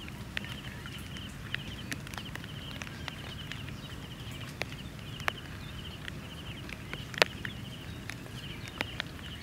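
Outdoor ambience: a high, rapid chattering trill repeats in the background, with scattered sharp clicks and taps. The loudest click comes about seven seconds in.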